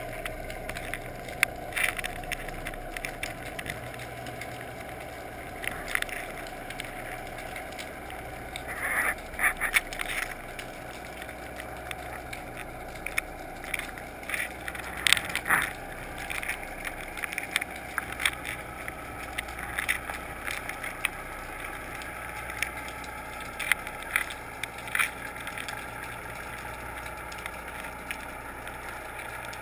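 Underwater sound picked up through a GoPro's waterproof housing as it is towed on fishing line: a steady muffled water rush, with irregular clicks and crackles scattered throughout.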